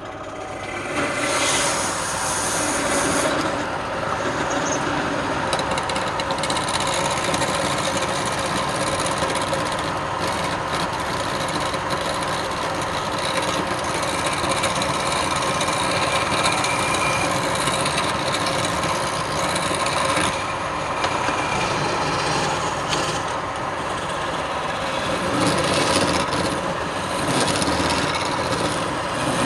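Wood lathe running, with a tool working against the spinning wood: a steady, continuous scraping over the machine's hum.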